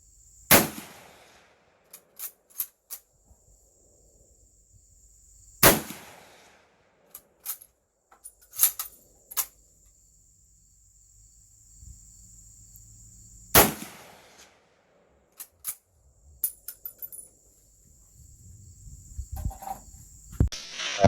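Mosin Nagant 91/30 bolt-action rifle firing 7.62x54R: three shots several seconds apart, each followed by a few metallic clicks of the bolt being worked to chamber the next round.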